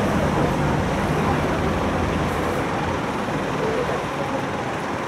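Tram running noise heard from on board: a steady rumble and hiss, the low rumble easing off after about three and a half seconds as the tram slows toward a stop.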